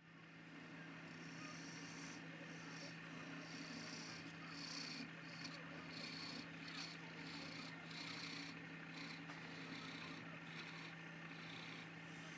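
Wood lathe running with a steady motor hum and a hissing, rubbing noise from the spinning workpiece; the hiss comes and goes in waves, and the whole sound starts abruptly.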